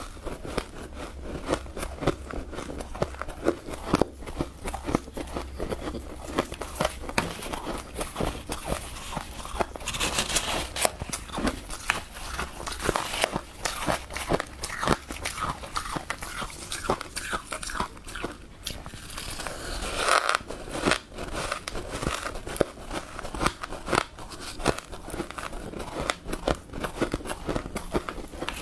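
Close-up biting and chewing of soft freezer frost: a continuous run of many irregular crunches and crackles.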